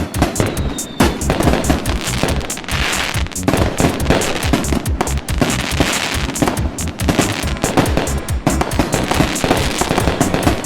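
Fireworks going off in quick succession, with dense crackling bangs, mixed with background music that has a steady beat.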